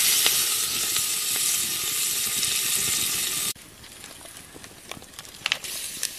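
Sliced red onions sizzling loudly in hot oil in an aluminium pot over a wood fire. The sizzle cuts off suddenly about three and a half seconds in, leaving a quieter frying hiss with a few light clicks.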